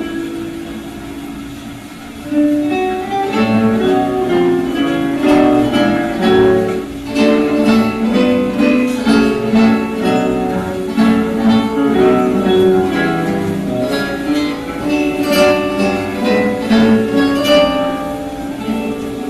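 Four acoustic guitars playing together as an ensemble, plucked melody over plucked accompaniment. The playing is softer for the first two seconds, then thickens and grows louder.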